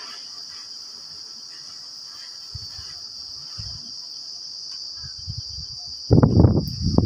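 Steady high-pitched chorus of insects shrilling without a break. Near the end comes a loud low rumble lasting about a second and a half, which is the loudest sound here.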